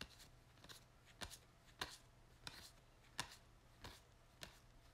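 Card-game cards being thumbed through one at a time from a hand-held stack. Each card slid off the top gives a short, crisp snap, about eight in a row, each roughly two-thirds of a second after the last.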